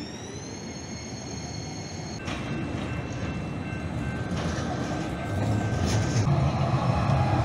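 Calgary CTrain light-rail train accelerating: an electric whine rises in pitch, levels off in the first second and stops about two seconds in, under a rumble of wheels on rail that grows steadily louder.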